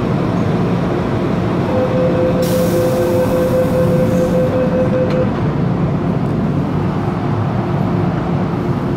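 MTR Kwun Tong line metro train running through a tunnel, heard from inside: a steady rumble of wheels on track with a hum from the running gear. A steady whine holds from about two to five seconds in, with a brief hiss over part of it.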